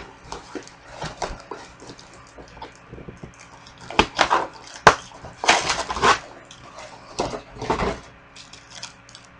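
Cardboard packaging being handled and slid apart: irregular bursts of scraping and rustling, loudest in the middle, with one sharp tap about five seconds in.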